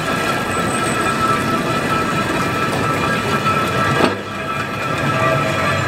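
Steel wheels of Sunderland tram 101 rolling and grinding along the rails as the car is pushed slowly by hand, a steady rumble with faint tonal ringing. A single sharp knock comes about four seconds in.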